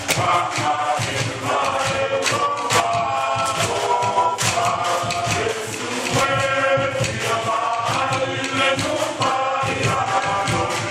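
A group of adults singing a song together in chorus, with repeated sharp percussive hits keeping the beat.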